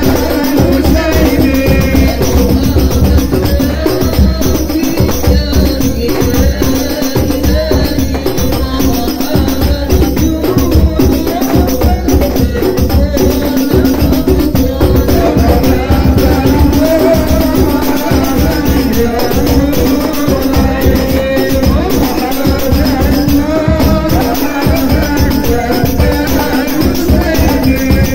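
Hadrah ensemble of rebana frame drums and a deep bass drum beaten in a fast, steady rhythm, with men singing together over the drumming.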